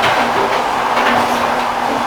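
Railway carriage wheels running on the track: a steady rolling rush with a low steady hum, and only faint clacks over the rail joints.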